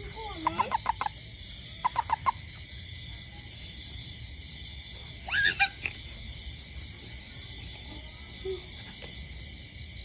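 A handheld toad giving short chirping calls: two quick runs of four or five pulses in the first two seconds or so, then a louder, rising call about five seconds in, over a steady insect chorus.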